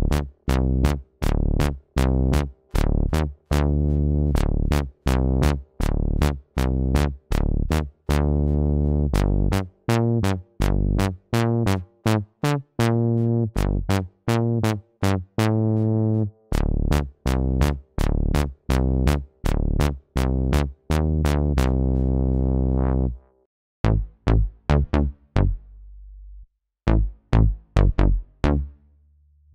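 Synapse Audio Obsession, a software emulation of the Oberheim OB-Xa analog synthesizer, playing a bass-heavy sequenced pattern over a steady drum-machine beat. The notes break off at about 23 seconds and come back as a sparser, choppier figure.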